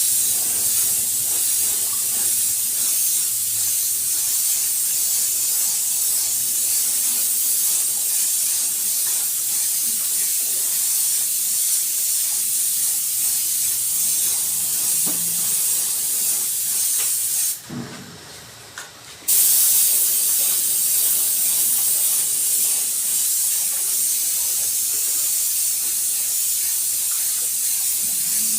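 Compressed air hissing steadily from a pneumatic tool, cut off for about two seconds partway through, then starting again.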